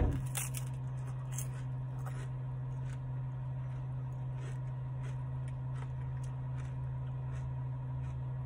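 A bite into a soft-serve ice cream in a wafer cake cone right at the start, then quiet chewing with small crunches and mouth clicks. A steady low hum runs underneath.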